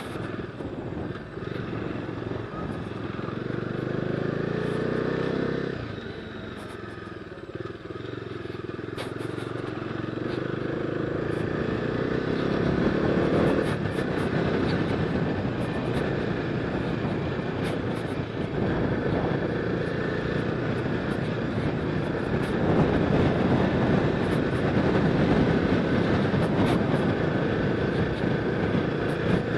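Bajaj Dominar 250's single-cylinder engine being ridden along a rough dirt track. It revs up, drops suddenly about six seconds in, revs up again until about thirteen seconds, then runs on steadily under throttle, with small clicks and rattles over the rough ground.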